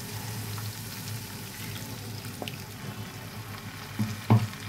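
Mustard-paste masala sizzling steadily in hot oil in a kadai as the water from rinsing the spice bowl is poured in, the oil having separated from the masala; two short knocks near the end.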